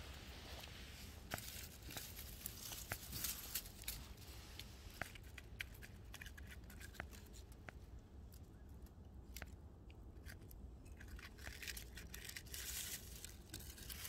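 Faint crackling and rustling of dry leaves, grass and pine needles: scattered small sharp crackles, with brief bursts of rustling in the first few seconds and again near the end.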